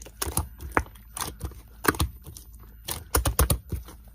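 Irregular sharp tapping clicks, like typing, with a quick run of several taps about three seconds in.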